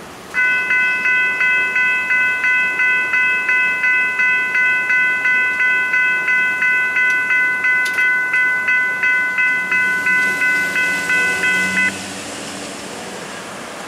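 Railroad grade-crossing warning bell ringing in a steady rhythm of about two strikes a second while the gate arms rise after the train has passed. It stops abruptly about twelve seconds in as the gates come up and the flashing lights go out, clearing the crossing.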